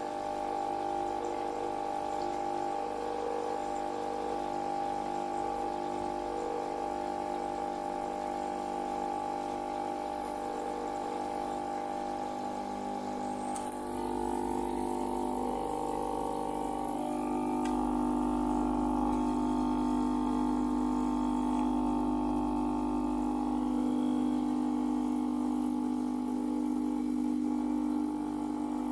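A Gaggia Viva Deluxe espresso machine's vibratory pump humming steadily while priming, pushing a stream of water out of the steam wand into a plastic tub. About halfway through, the pump's tone shifts and then settles into a lower, louder hum.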